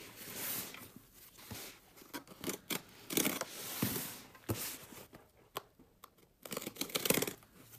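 Cardboard shipping box being handled, turned over and slid on a tabletop by gloved hands: irregular scrapes, rustles and a few knocks of cardboard, loudest near the end.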